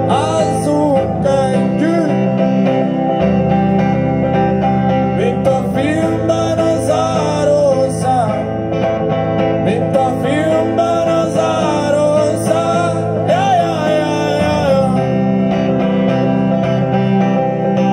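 Live pop song played through a stage PA: electric guitar with bending, gliding notes over a steady electronic backing, in a stretch without sung lyrics.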